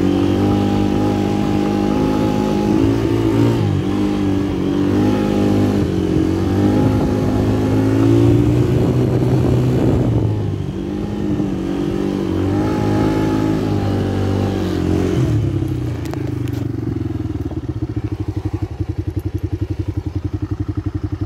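Kawasaki KFX90 quad's small single-cylinder four-stroke engine running under way, its pitch rising and falling as the throttle is worked. In the last few seconds it drops to a pulsing idle.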